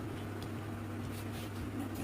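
Soft, wet chewing and mouth sounds of someone eating rice with vegetables, a few small smacks, over a steady low hum.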